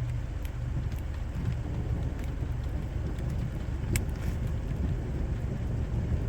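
Heavy thunderstorm rain under a low, continuous rumble, with scattered drops tapping close by and one sharper tap about four seconds in.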